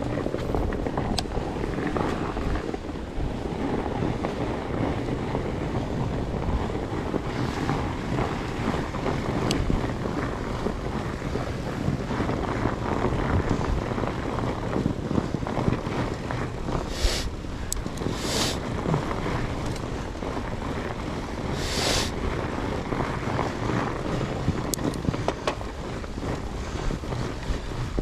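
Wind buffeting an action camera's microphone over the steady rumble of a fat bike's tyres and drivetrain riding through snow, with a few short hissing bursts near the middle.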